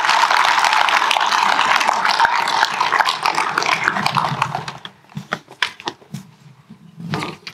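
Audience applauding, a dense patter of many hands clapping. It dies away sharply about five seconds in, leaving scattered claps and knocks.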